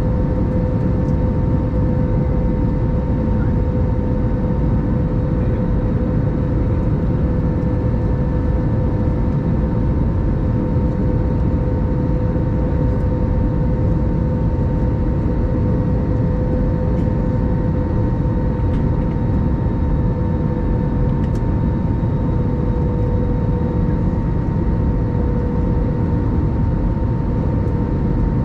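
Cabin noise inside an Airbus A321-200 airliner in flight: a steady low rush of airflow and engine noise with a constant hum on top.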